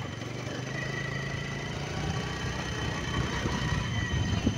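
Motorcycle engine running at low road speed, a steady hum that turns rougher and a little louder from about two seconds in as the bike rides over a rough dirt track.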